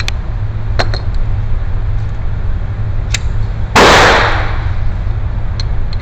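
A single shot from a Raven Arms P-25 .25 caliber pocket pistol about four seconds in, with a few light clicks before it.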